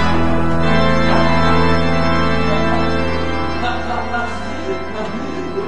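Background organ music holding long sustained chords, easing off slightly in the second half.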